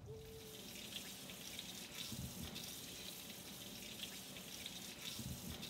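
Kitchen faucet running steadily into a sink while carrots and hands are rinsed under the stream.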